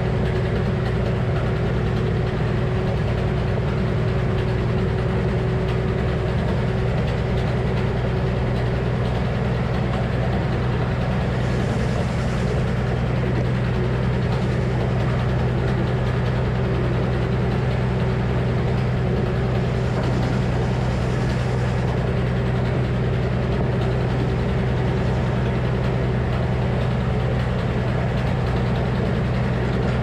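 Old Frick sawmill running steadily between cuts: the constant drone of its power unit and spinning circular blade, with a strong steady hum.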